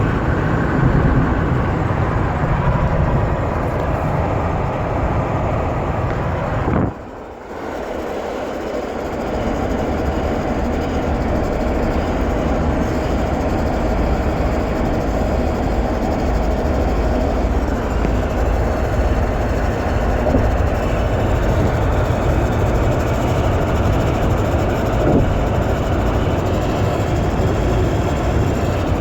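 Cabin noise of a 2007 Jeep Wrangler JK driving at speed: steady road and engine rumble with a steam- or wind-like hiss that the owner hears from the centre of the dashboard above 60. The sound drops off sharply about seven seconds in and swells back over the next few seconds.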